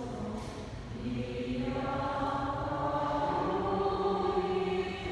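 Voices chanting or singing in long held notes, like a choir, with a short break about a second in.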